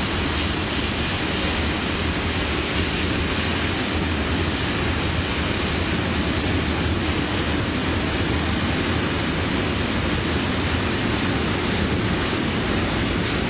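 Steady rushing noise, with wind on the microphone, as an ÖBB Talent electric multiple unit approaches slowly.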